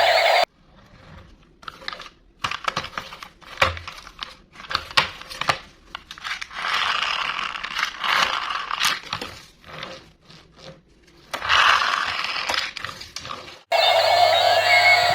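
Toy packaging being opened and handled: plastic and cardboard crinkling, tearing and scraping, with many sharp clicks and taps and a couple of longer stretches of rustling.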